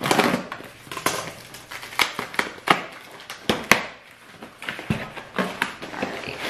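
Scissors cutting through packing tape on a cardboard box, then the tape tearing and the cardboard flaps being pulled open, in an uneven run of sharp crackles and snaps.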